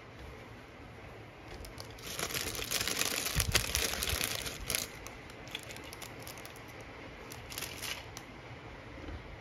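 Thin clear plastic bag crinkling as it is handled and opened to take out pin-back buttons. The crinkling is loudest for a few seconds starting about two seconds in, with a soft bump in the middle, then comes in lighter scattered crackles and a short burst near the end.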